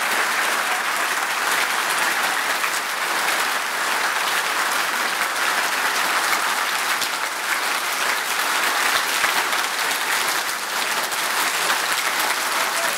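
An audience clapping hard and without a break, as a sustained round of applause used to play a clap-controlled game: the louder the clapping, the higher the on-screen bird flies.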